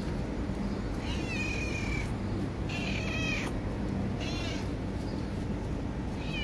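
Hungry black-and-white stray cat meowing for food, four rising-and-falling meows with the last near the end, over a steady low hum.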